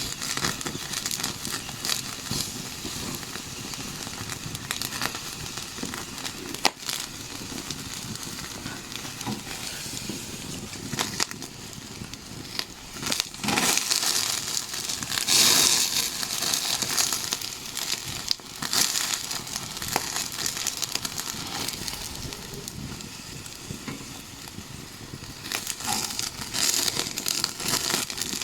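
Campfire crackling and popping in irregular snaps, with one sharp pop about a quarter of the way in and a louder stretch of hissing crackle around the middle.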